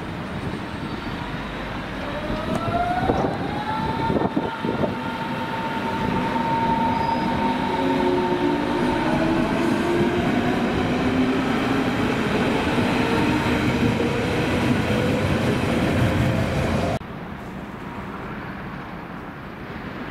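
Berlin S-Bahn electric multiple unit pulling away from the platform: its traction motors whine, rising in pitch as it accelerates, over the running noise of wheels on rails. The loud sound cuts off suddenly near the end, leaving a fainter rumble.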